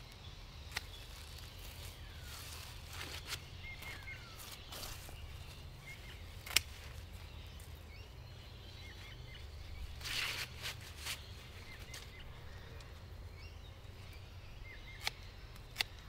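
Quiet garden ambience: scattered faint bird chirps over a low steady rumble, with rustling of sunflower leaves and stalks and a few sharp clicks as stems are handled and cut.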